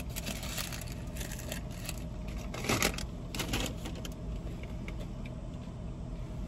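Scattered rustling and clicking of food wrappers being handled during a meal in a parked car, loudest in two short bursts near the middle, over a steady low rumble.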